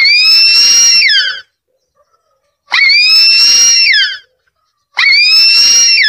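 Harpy eagle calling: three long, high-pitched calls, a little over a second each and about two and a half seconds apart, each rising sharply, held level, then falling in pitch at the end.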